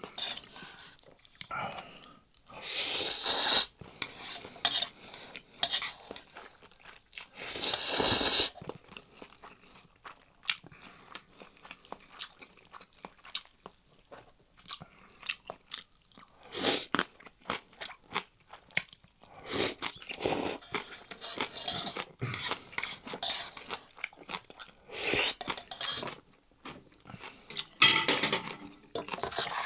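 Close-miked eating of Chapagetti noodles and green onion kimchi: chewing and crunching with many small wet clicks, and utensils clinking against the bowl. Three louder rushes about a second long stand out, one a few seconds in, one near the middle of the first third, and one near the end.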